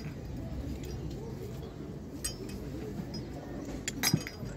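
Porcelain clinking against porcelain: a couple of light clinks about two seconds in and a louder cluster of clinks near the end, over a low murmur of voices.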